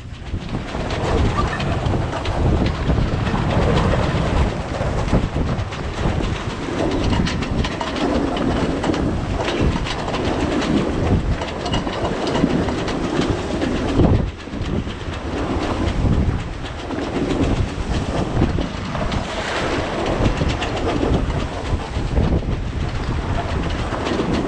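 Strong wind buffeting the microphone over the rushing, rumbling noise of a sailing yacht under way in about 25 knots of wind. The sound surges and eases every few seconds.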